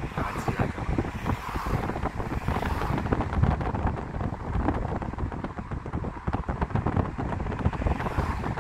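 Road and wind noise of a moving car, with wind buffeting the microphone in an uneven rumble.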